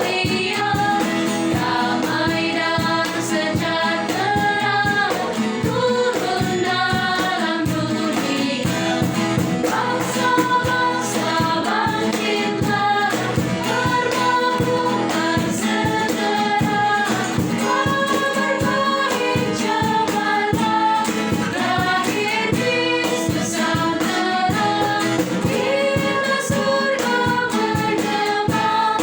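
A choir singing a religious song with instrumental accompaniment.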